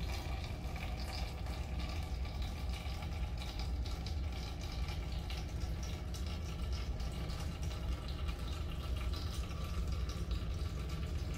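Filtered water running steadily from a thin outlet tube into a cup of water, over a steady low hum.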